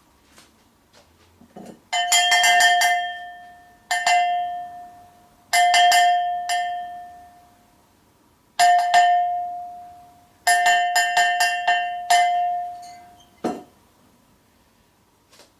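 A small bell rung in five short bursts of one to several strikes, each ringing out with a clear pitch and fading over about a second. A single dull thud follows near the end.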